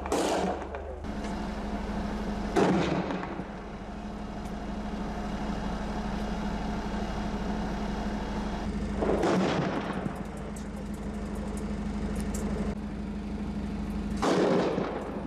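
Single gunshots, four loud echoing reports several seconds apart, over the steady low hum of an idling vehicle engine.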